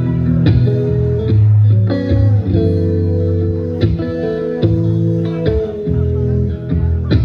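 Live band playing: electric guitar over bass and drums, recorded from within the club audience.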